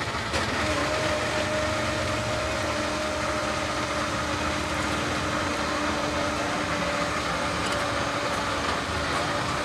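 Steady hiss from a gas-fired cast-iron quail-egg pan as eggs are spooned in to fry, with a steady low hum setting in about half a second in.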